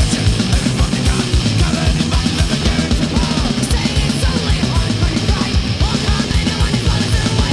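Punk rock recording: full band with fast, steady drumming and a driving kick drum under a dense wall of distorted guitar.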